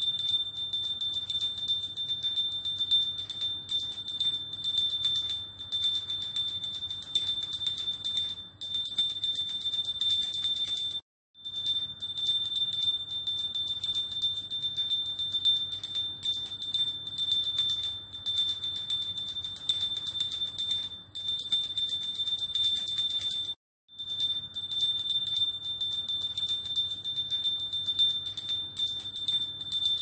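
Small worship bell rung rapidly and continuously, its clapper striking many times a second to give a steady high ringing. It stops dead for a moment twice, about 11 and 23 seconds in.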